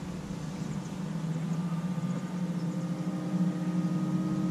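Electrify America DC fast charger humming as it ramps up charging power, a steady electrical hum that grows gradually louder, with a higher whine joining about a second and a half in.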